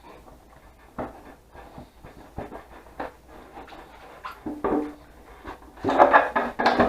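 Light knocks and rubbing as the fuel tank of a 2008 Yamaha V-Star 1100 is wiggled loose and slid off its mounts, with a denser, breathy stretch near the end.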